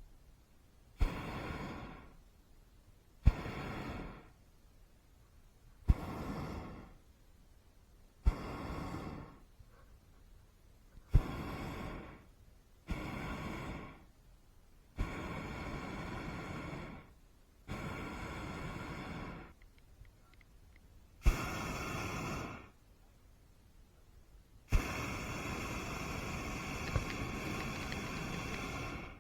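Hot air balloon's propane burner fired in short blasts: each opens with a sharp click of the valve, then a steady rushing roar for one to two seconds before cutting off. About ten blasts come a couple of seconds apart, and the last one near the end is held for about four seconds.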